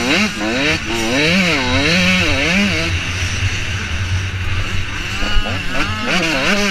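An 85cc two-stroke motocross bike engine revving hard, its pitch climbing in short sweeps and dropping back again and again as the throttle is worked, easing off for a couple of seconds in the middle. One sharp knock sounds about five seconds in.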